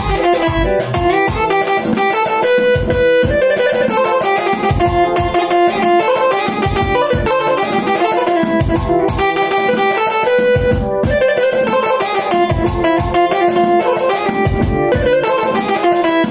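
Korg Pa-series arranger keyboard played live: a busy melody over an accompaniment with a steady low beat.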